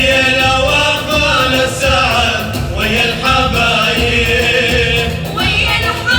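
A group of voices singing a melodic line with wavering, ornamented pitches over steady instrumental accompaniment.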